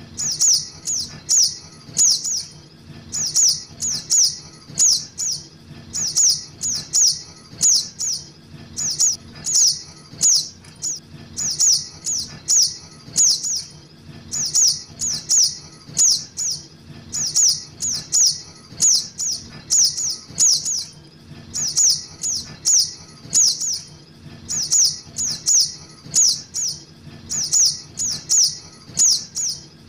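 Juvenile little spiderhunter (sogok ontong) calling: sharp, high, slightly falling chip notes repeated about two a second in short runs with brief pauses, played as a lure call.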